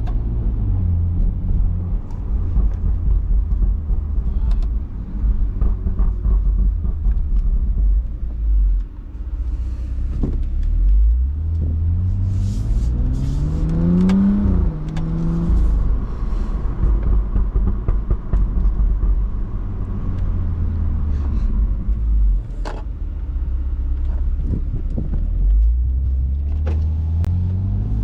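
BMW F30 335i's turbocharged inline-six, Stage 2 tuned and catless, heard from the driver's seat while driving: a steady low exhaust rumble. Near the middle the engine revs climb for a few seconds, then drop, and they climb again near the end.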